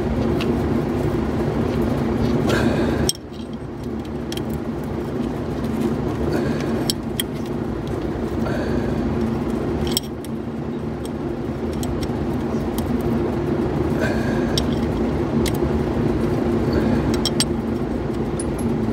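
Light metallic clinks and taps of hand tools and fittings as a hose clamp is worked in a diesel engine bay, over a steady mechanical hum. The hum drops sharply about three seconds in and again about ten seconds in.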